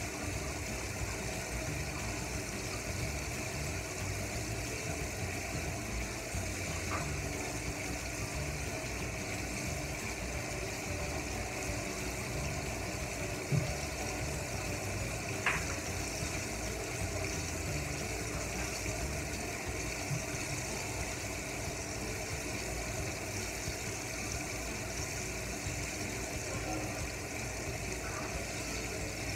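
Battered chicken feet deep-frying in a pan of oil: a steady sizzle and bubbling, with a couple of brief clicks midway.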